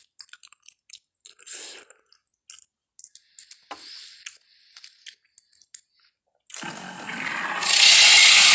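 Dinosaur sound effect: scattered wet chewing and crunching clicks, then a loud rasping noise that swells from about six and a half seconds in.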